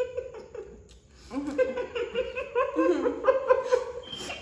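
Women laughing in quick, high-pitched rhythmic bursts, starting about a second and a half in.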